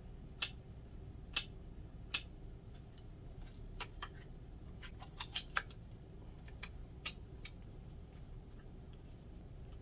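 Scattered sharp clicks and taps from a phone belt-clip holster and its 3D-printed replacement clip being handled, with a quick run of clicks about five seconds in.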